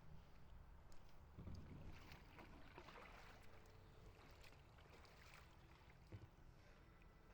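Faint splashing of kayak paddles dipping into the water, a run of soft strokes that is strongest a couple of seconds in and fades out.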